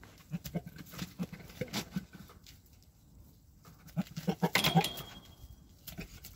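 Goats making short low grunting sounds mixed with clicks, in two flurries, the louder one about four seconds in.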